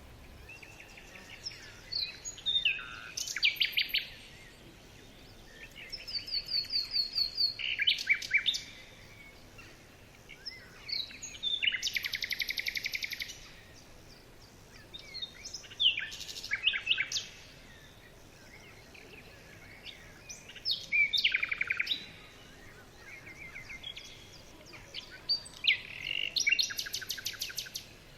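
Small songbird singing: six bouts of rapid, high chirps and trills a few seconds apart, over a faint steady background hiss.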